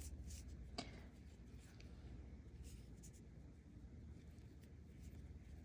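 Near silence with faint rustling and a few light clicks of a crochet hook and yarn being worked by hand; the clearest click comes about a second in.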